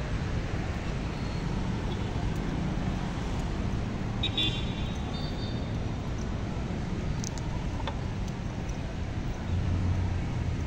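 Steady outdoor city background noise: a low, uneven rumble of traffic, with a brief high-pitched sound about four seconds in.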